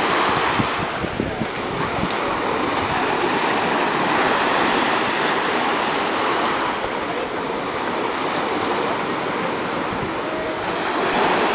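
Small waves breaking and washing up a sandy beach: a steady hiss of surf that swells and eases over several seconds.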